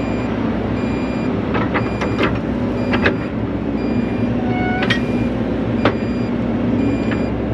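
Volvo excavator's diesel engine running steadily, with several sharp knocks and clanks, and a faint high electronic beep repeating at an even pace.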